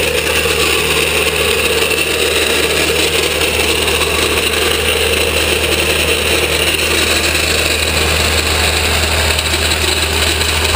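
Steady road noise with a low hum from a vehicle driving slowly, the towed car's locked wheel riding on a floor jack that rolls along the road surface.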